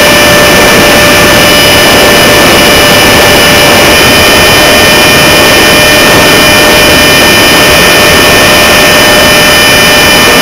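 Electric ducted fans of a foam radio-control F-4 Phantom model jet whining at a steady throttle in flight, heard from a camera on the tail, with a loud rush of wind over the microphone.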